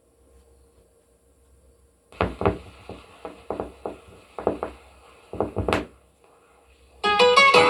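A dozen or so irregular sharp knocks and taps over about four seconds, then acoustic guitar music starts abruptly near the end.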